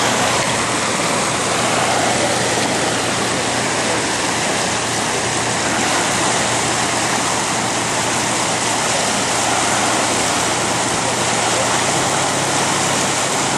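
Steady rush of water churned up by a moving boat, with the even hum of its motor underneath.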